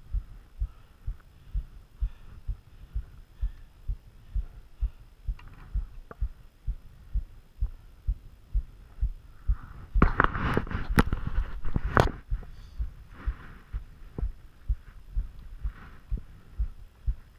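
A steady run of low, regular thumps, about two a second. About ten seconds in comes a louder two-second burst of jacket fabric rubbing and scraping over the camera, with a few sharp clicks.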